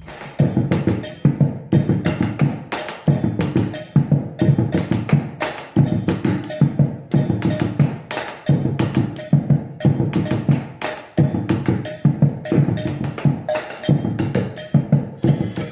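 Percussion ensemble of bombo legüero drums played with sticks in a steady, repeating rhythm: deep strokes on the drumheads mixed with sharp wooden clicks.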